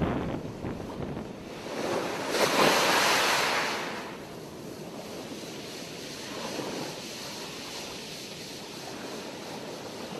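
Wind blowing over the microphone together with the rush of breaking North Sea surf. The rush swells loudest about two to four seconds in, then settles into a steadier, quieter wash.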